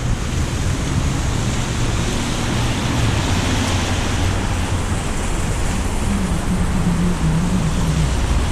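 A car driving on rain-wet streets: steady tyre and road hiss over a low engine hum that wavers slightly in pitch in the last couple of seconds.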